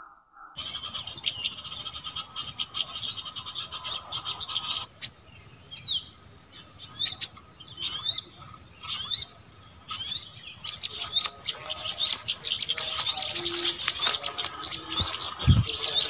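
Small birds chattering in high, fast trills: a dense burst for the first few seconds, then single sharp sweeping chirps about once a second, then dense chattering again from about eleven seconds in. It is the combined bird-call recording used as a lure for catching small birds. A brief low bump comes near the end.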